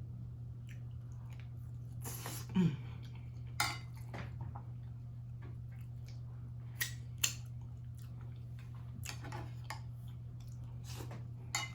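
Close-miked chewing with wet lip smacks and mouth clicks as a man eats a mouthful of food, over a steady low hum.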